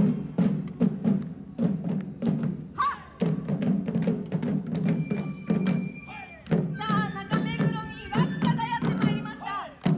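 Yosakoi dance music over loudspeakers, with a steady, heavy drumbeat and singing voices; dancers beat hand-held taiko drums.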